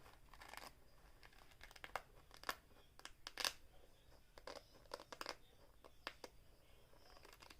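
Faint, scattered crinkles and soft clicks of a Shaggy Neato squishy fidget toy with rubbery hairs being squeezed and handled.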